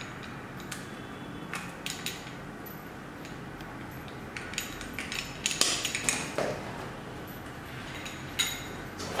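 Scattered light clicks, taps and clinks of a granite-finish kitchen faucet and its parts being handled and set down on a glass countertop, with a small flurry of knocks about six seconds in.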